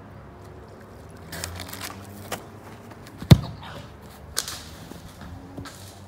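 A soccer ball kicked hard: one sharp thump a little over three seconds in, the loudest sound, with a smaller knock about a second later and some scuffling before the kick.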